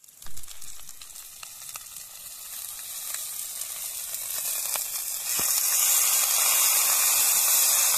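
Coconut milk poured into a hot clay pot lined with a banana leaf and a little coconut oil, hissing and sizzling as it hits the fried fish. The sizzle grows louder over the first few seconds as more milk goes in, then holds steady.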